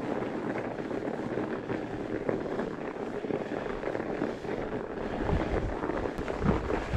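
Fat bike's 26-inch wheels with 5-inch tyres rolling through packed, crusty snow, giving a steady crackling crunch, with wind buffeting the microphone in low rumbles over the second half.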